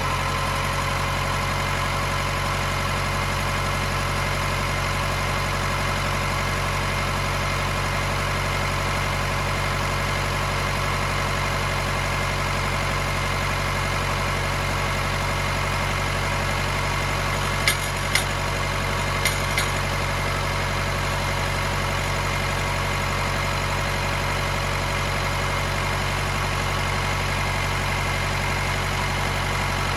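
Nissan Navara D40's YD25 four-cylinder diesel idling steadily on its first run after a duplex timing chain conversion, with no chain rattle. A few brief sharp clicks come a little past halfway.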